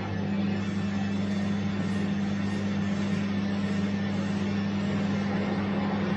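Bosch washing machine running: a steady motor hum under an even rushing noise from the drum and water.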